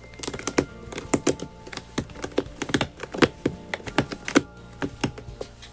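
Cat clawing a corrugated cardboard scratcher: quick, irregular scratchy clicks that die away near the end.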